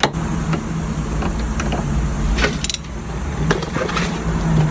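Scattered light clicks and knocks of a wrench working the positive terminal clamp on a car battery, over a steady low hum.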